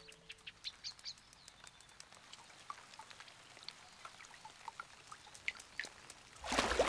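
Quiet animated garden-pond ambience: scattered small water drips and clicks with a few faint, short bird chirps. A brief, louder rush of noise comes near the end.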